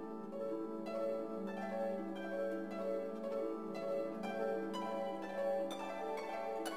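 Gentle background music: a melody of plucked string notes over a steady held low note.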